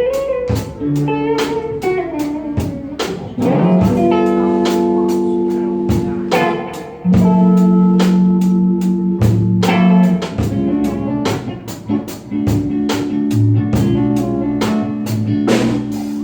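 Live blues-style improvised jam: guitar playing held, bent notes over a bass guitar and a drum kit keeping a steady beat.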